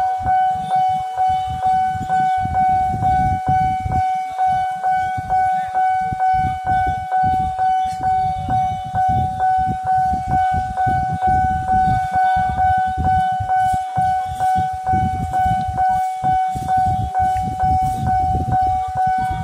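Railway level-crossing warning bell ringing steadily at about two strikes a second over one held tone, signalling that a train is approaching. A low rumble runs underneath.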